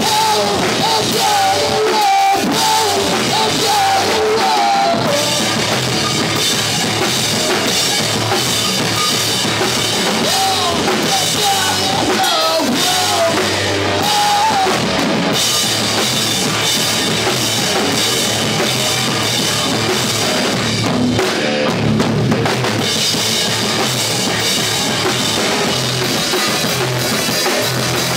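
Live rock band playing: drum kit, electric guitars and bass guitar, steady and loud. A wavering lead melody rides over the band for the first few seconds and again around the middle.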